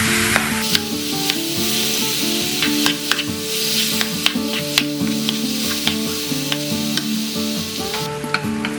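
Food frying in hot oil in a pan: a steady sizzle with scattered sharp pops, the hiss loudest in the first half-second.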